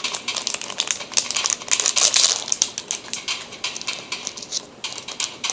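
Foil wrapper of a trading card booster pack crinkling as it is torn open, a quick run of crackles that is loudest about two seconds in.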